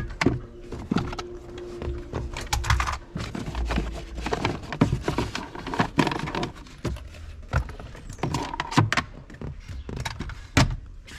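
Scattered clicks, knocks and light jingling, handling sounds in a car's cabin, with a faint steady hum in the first few seconds.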